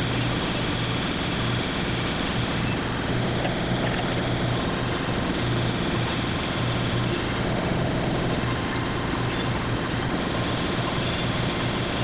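Vertical milling machine running with its end mill cutting an aluminium block: a steady low hum from the machine under a continuous noise of the cutter chipping metal.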